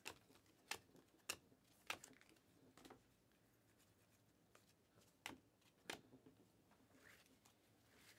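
Glossy Panini Mosaic trading cards being flicked one behind another in a hand-held stack, giving faint, sharp snaps of card stock: several in the first two seconds and a couple more around five to six seconds in.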